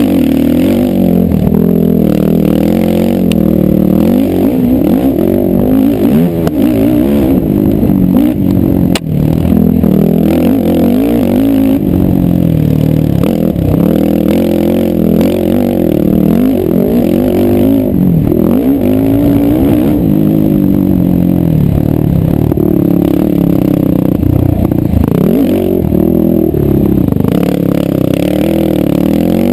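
Sport ATV engine being ridden hard, revving up and falling back again and again as the throttle opens and closes. There is one sharp knock about nine seconds in.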